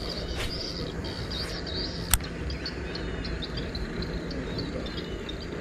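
Outdoor wetland ambience: birds chirping over and over in a high, steady pattern. A single sharp click about two seconds in is the loudest sound.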